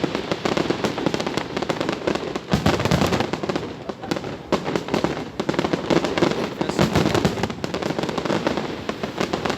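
Fireworks display: a dense, continuous barrage of bangs and crackling shells, with no break.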